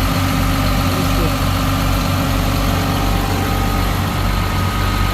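Caterpillar 950H wheel loader's six-cylinder diesel engine running steadily at an even speed after its overhaul.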